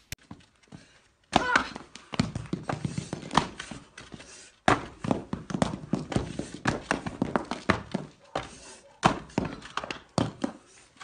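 Irregular knocks and clunks of bricks being handled on wooden benches, several a second, with short breaks about halfway through and again near the end.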